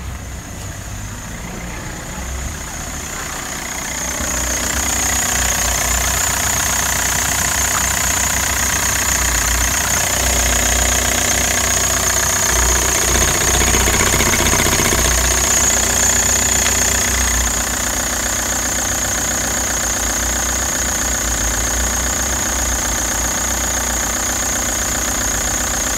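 Opel Y20DTH 2.0-litre four-cylinder turbodiesel idling steadily with diesel clatter and a steady high whine over it. The clatter gets louder about four seconds in and eases a little near seventeen seconds.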